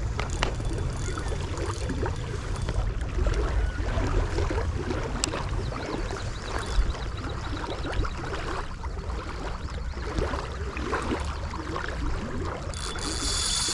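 Water lapping and splashing around a small fishing boat, with wind buffeting the microphone; near the end a steady high hiss joins in.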